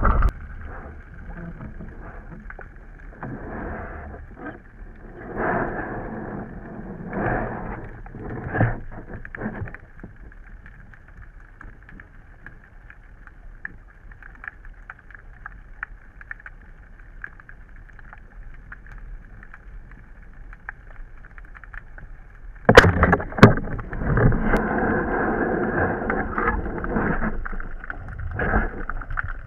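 Muffled water noise picked up through an underwater camera housing while swimming. Surges of swishing come every second or two early on, then it goes quieter for a long stretch. About two-thirds of the way in, a couple of sharp knocks start a louder, continuous swishing.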